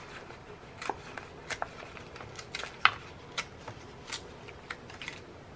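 A scored, taped strip of cardstock being torn apart by hand along its score line: a run of irregular crackles and ticks.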